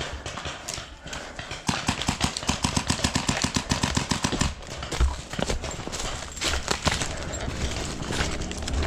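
Rapid paintball marker fire: a fast, even string of sharp pops, about eight a second, starting a couple of seconds in and lasting about three seconds, then scattered single shots.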